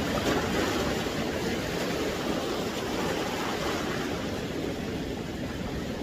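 Sea surf washing and foaming over a shallow shore: a steady rush of breaking waves, a little louder in the first second.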